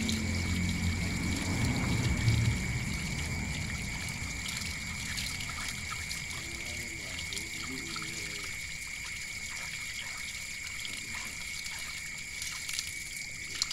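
Running water pouring and trickling over a snake's body and onto a concrete floor while hands rub and wash the snake clean under the stream. The water is louder for the first couple of seconds, then settles to a steadier, softer trickle.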